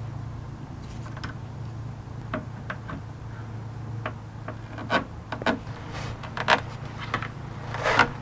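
Hose-clamp pliers clicking and scraping on a spring hose clamp as the fuel line is worked loose from the fuel filter, in scattered short clicks that grow sharper in the second half, over a steady low hum.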